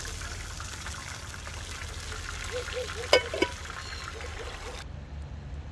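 Hot oil sizzling in a frying pan as a steak is lifted out with metal tongs, with two sharp metal clacks a little past the middle. Near the end the sizzle cuts off abruptly to a duller, quieter background.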